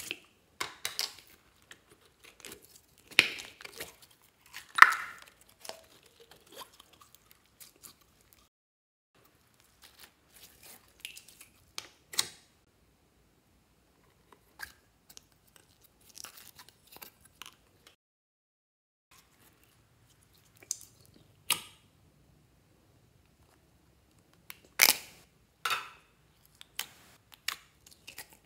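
Plastic slime containers being opened and handled: sharp clicks and pops of lids and plastic, with soft crackling between them, coming in irregular bursts with short quiet gaps.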